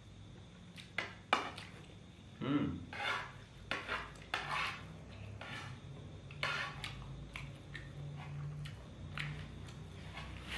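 Metal spoon scraping and clinking against a frying pan as fried rice is scooped up to eat, in irregular short strokes.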